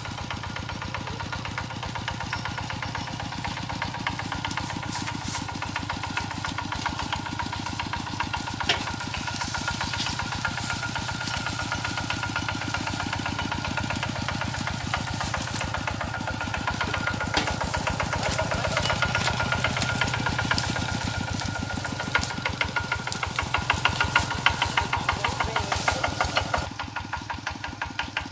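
Kubota RT120 walking tractor's single-cylinder diesel engine chugging steadily with a fast, even beat as it drives along. Louder for a few seconds near the end, then suddenly quieter.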